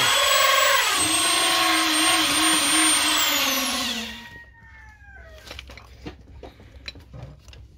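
A small electric motor, like a power tool, whines loudly with its pitch dipping and wavering, then winds down about four seconds in. After it, light metal clicks and clinks as the scooter's drive belt and variator pulley are handled.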